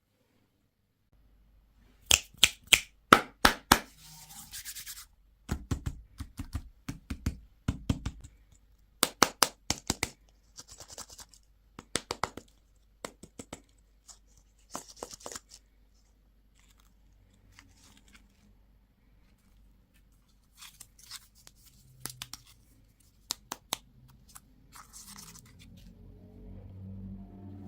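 Plastic candy and toy packaging being handled and opened: clusters of sharp clicks and snaps with short crinkling rustles, and a soft low rumble of handling near the end.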